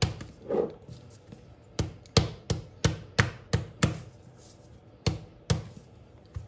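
A long strip of buttered, layered paratha dough slapped down again and again onto a silicone pastry mat to stretch it out: sharp slaps about three a second, in short runs with brief pauses between.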